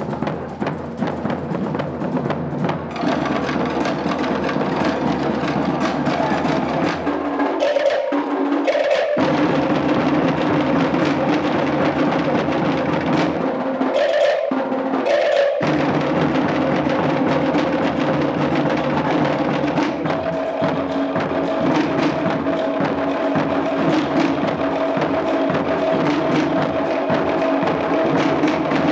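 Live drum ensemble of hand drums and a large bass drum beating a fast, driving rhythm for dancers. The deep drums drop out briefly twice, around 8 and 14 seconds in, while the higher drumming carries on.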